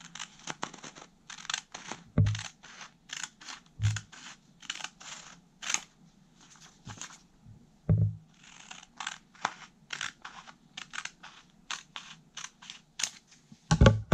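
Scissors snipping through two stacked sheets of origami paper, short crisp cuts about two a second. A few low bumps of handling, with a louder knock near the end.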